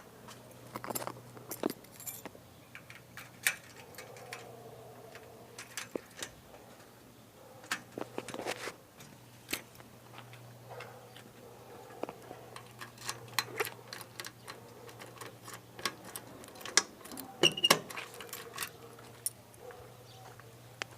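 Keys jangling, with irregular light clicks and knocks scattered throughout over a faint steady low hum.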